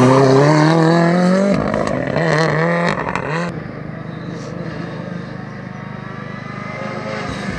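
Ford Fiesta rally car accelerating hard out of a corner: the engine pitch climbs, breaks at a gear change about a second and a half in, pulls again, then drops away suddenly after about three and a half seconds as the car drives off. Near the end the next rally car's engine is faintly heard approaching.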